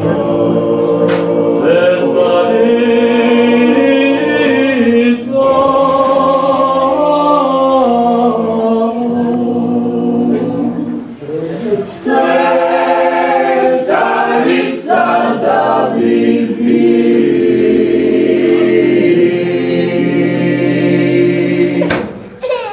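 A mixed choir of men's and women's voices singing a song together, with brief breaks between phrases about a quarter of the way in, around the middle, and near the end.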